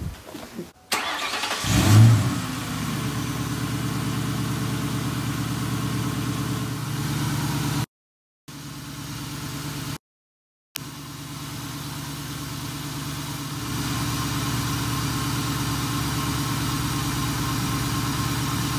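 The 2001 Mustang GT's 4.6-litre V8 cranks and fires about a second in, flaring loudly for a moment before settling into a steady idle; the sound drops out twice for under a second midway. It is the first start on a newly fitted cold air intake: the owner found it a louder, harder start-up than usual and hears no intake leaks at idle.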